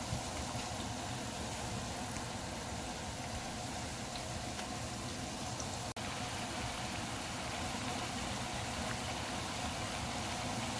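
Hot oil sizzling steadily around lentil fritters deep-frying in a wok, with a brief break about six seconds in.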